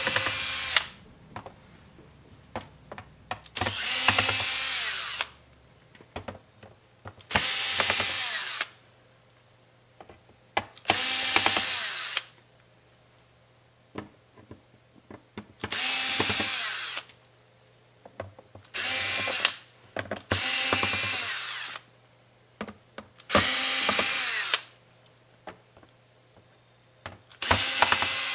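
Cordless electric screwdriver backing out the laptop's bottom-cover screws in about nine short runs of about a second each, a few seconds apart. Small clicks fall in the gaps between runs.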